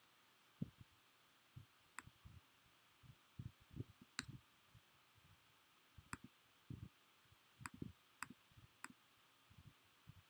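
Faint, scattered computer clicks, about six sharp ones, among soft low thumps.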